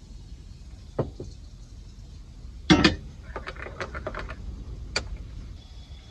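Handling a stovetop kettle and a ceramic mug on a wooden worktop: two light knocks, then a loud clunk, followed by a run of quick small taps and one last sharp tap, over a low steady rumble.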